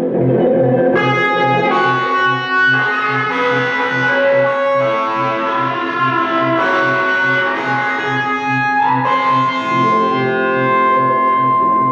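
Electric guitar played through effects pedals: long, held notes that change pitch every second or so over a low note that pulses about three times a second. Near the end a note slides upward into a long sustained tone.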